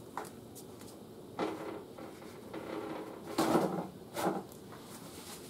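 Kitchen handling noises: a light click, then a few short scrapes and rustles.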